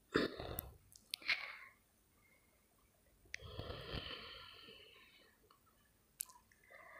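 A metal spoon stirring thick fish-head curry in a clay bowl: three faint clicks as it touches the bowl, with soft scraping and squelching between them.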